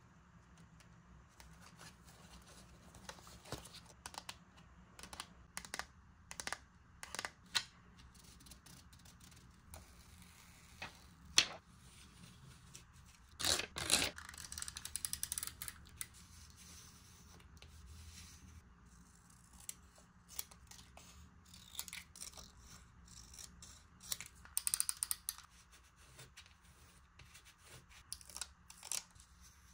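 Close-up paper and stationery handling while decorating a journal: scattered small taps, clicks and rustles. There is a sharp click about eleven seconds in, then a longer stretch of paper noise a couple of seconds later and another shorter one near the end.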